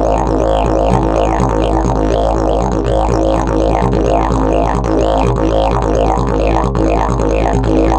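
Fiberglass and prickly-pear-fibre slide didgeridoo played with a steady low drone, its overtones sweeping up and down in a quick, even rhythm of about two to three sweeps a second.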